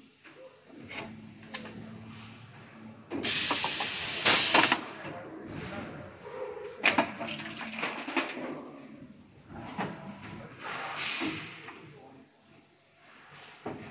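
Injection moulding machine cycling a flip-top cap mould with pneumatic cap-closing cylinders. Compressed air hisses loudly from about 3 to 5 seconds in and again around 11 seconds, with scattered metallic clicks and knocks from the mould and its cylinders.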